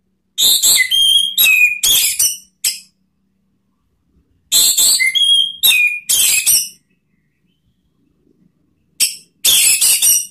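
Orange-headed thrush (anis merah) singing its loud, open ngeplong song: three phrases of rapid, high whistled and scratchy notes with a few falling whistles, each a second or two long and separated by pauses.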